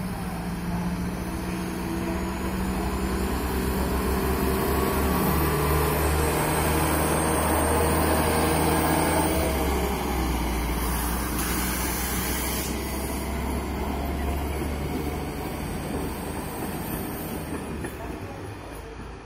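ČD class 842 diesel railcar pulling away with two coaches: its diesel engine works hard as the train gathers speed, the engine pitch stepping down about five seconds in. The sound swells as the train passes close, then fades as it draws away.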